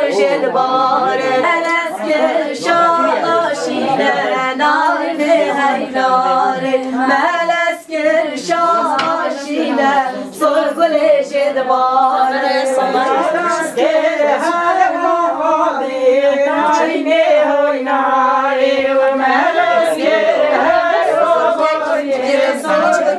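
A group of women singing together unaccompanied, a melodic song with long held notes.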